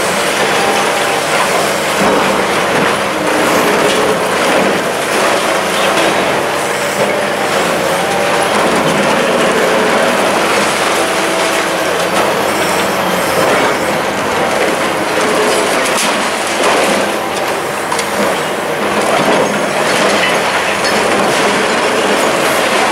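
Long-reach demolition excavator's crusher jaws biting through the concrete floors and walls of an apartment block: continuous crunching and grinding, with rubble clattering down and wavering screeches from tearing concrete and metal.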